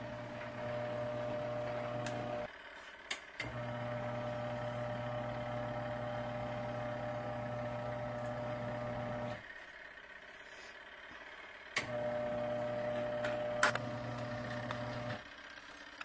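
Garatic portable twin-tub washing machine's wash motor turning the pulsator during a rinse cycle: a steady electric motor hum that stops and starts again twice, with a few sharp clicks around the stops.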